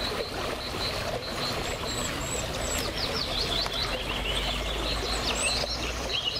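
Steady rush of flowing river water, with small birds singing quick high chirps and trills over it, busiest in the second half.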